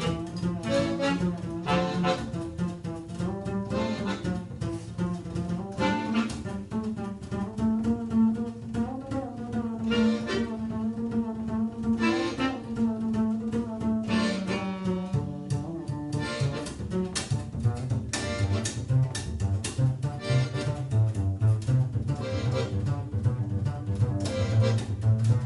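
Live instrumental music from a small acoustic trio: a sustained, reedy melody with long held notes over a bass line.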